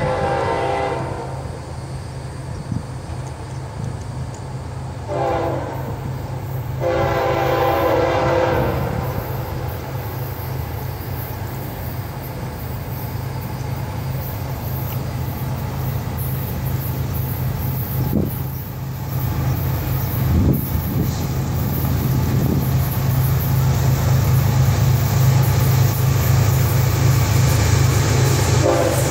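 Florida East Coast Railway freight train's diesel locomotive horn sounding as the train approaches: a blast at the start, a short one about five seconds in, a longer one from about seven to nine seconds, and another at the very end. Beneath the horn runs the low rumble of the locomotives and train, growing louder as it nears.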